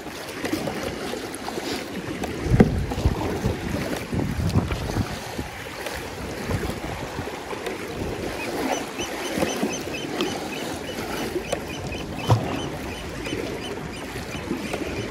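Kayak paddling: the paddle splashing and water lapping against the hull, with wind on the microphone. Two sharp knocks, one a few seconds in and one near the end, and a run of faint, quick high peeps through the second half.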